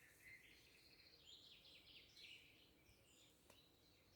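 Faint songbirds singing in a spring forest: scattered chirps and a run of quick falling notes about a second in.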